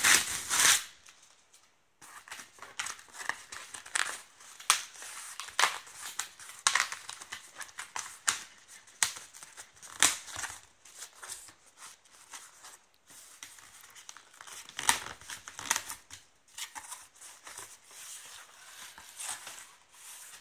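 Packing tape being slit and peeled off a cardboard shipping box, then the cardboard flaps pulled open: irregular scraping, tearing and crinkling strokes.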